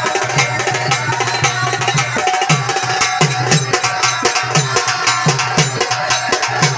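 Marathi folk music for a gan: a hand drum beats a brisk, even rhythm with clacking percussion, over steady held instrumental notes.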